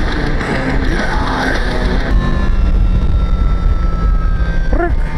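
Heavy rock music playing over a running motorcycle engine and road noise. About two seconds in the dense music drops away, leaving the engine's steady hum with a few slowly falling tones.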